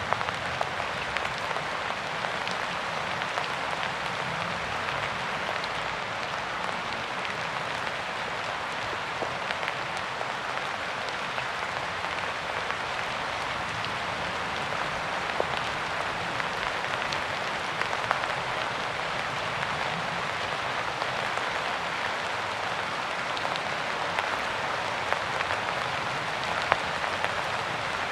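Steady rain: an even hiss of falling rain with scattered sharp ticks of individual drops striking a surface.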